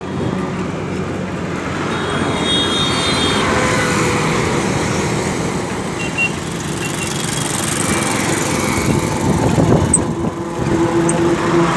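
A small engine running steadily, mixed with rushing wind and tyre noise, heard from a vehicle moving along a highway.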